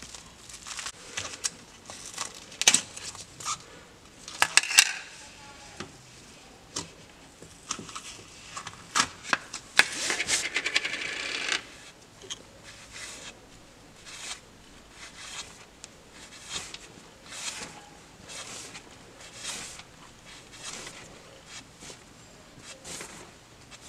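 Slime being squeezed and worked by hand, giving irregular sticky pops and clicks, with a burst of dense crackling about ten seconds in.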